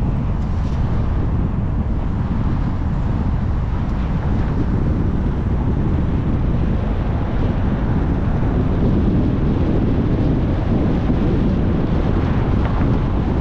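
Steady wind and road noise from a car driving along a city street, with wind buffeting the microphone: a constant low rumble with no distinct events.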